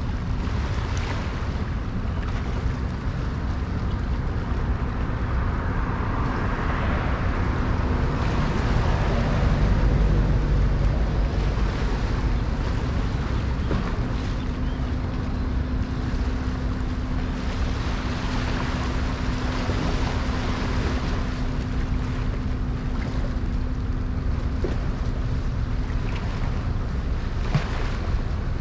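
Low, steady rumble of ship and tugboat engines with wind noise on the microphone. A steady hum joins about halfway through and stops shortly before the end.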